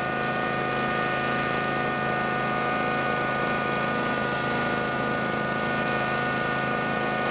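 Vacuum excavator running steadily: a constant engine-and-blower drone with a steady high whine over it.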